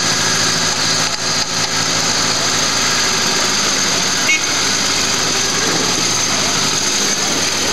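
An off-road 4x4's engine running steadily in deep mud while the vehicle is towed, with indistinct onlookers' voices mixed in.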